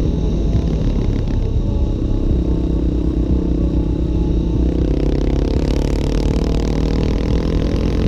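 Honda XR650R's single-cylinder four-stroke engine running under way on the motorcycle, heard from the rider's helmet, its pitch easing in the middle and rising gently as it pulls in the last few seconds.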